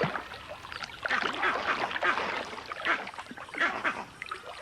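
Water splashing in irregular bursts as crocodiles struggle with an impala they have seized in a pool.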